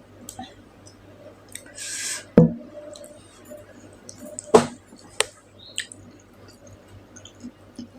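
Close-miked eating sounds: wet mouth clicks and smacks while chewing fish and stew. There is a short breathy rush at about two seconds and two sharp louder knocks, the first just after it and the second about two seconds later.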